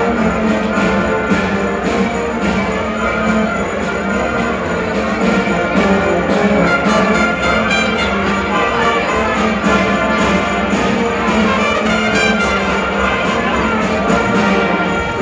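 School concert band of brass, saxophones and percussion playing a piece with a steady beat.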